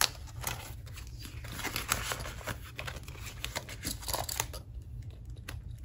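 Paper banknotes and cash envelopes being handled: a run of light rustles and flicks as bills are counted and swapped, easing off briefly about five seconds in.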